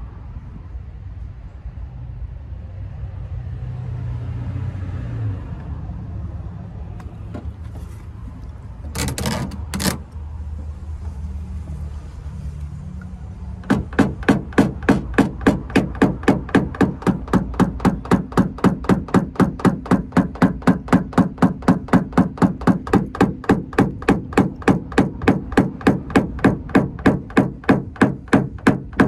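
Paintless dent repair tapping: a small PDR hammer striking a knockdown tool held against the car's metal quarter panel, knocking down high spots. It starts about halfway in as a fast, even tapping of about three to four strikes a second, after a low background rumble.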